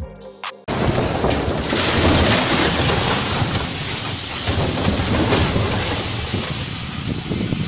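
A brief bit of electronic music, then a sudden cut to a loud, continuous rumble and rushing hiss as a huge boulder crashes down a slope and crushes a structure in a cloud of dust.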